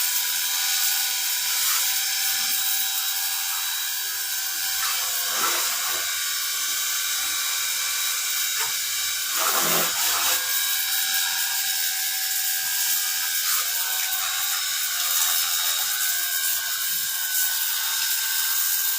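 Cordless battery-powered pressure washer running steadily on a full charge, its motor whining under a hiss of spraying water, with a brief louder rush about halfway through.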